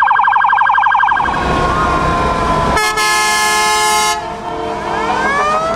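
Police siren in a fast yelp for the first second or so, then a fire engine's air horn blasts for over a second about three seconds in, followed near the end by sirens rising in pitch.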